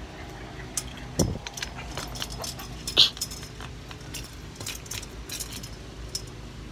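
Metal chain rattling and clinking as it is worked by hand on a wooden gate, with a dull knock about a second in and one loud, sharp clink about three seconds in.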